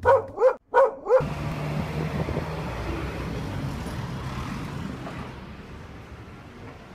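Four quick, high yips from a small dog, evenly spaced in the first second, then a steady rustling noise of a handheld camera being carried around that slowly fades.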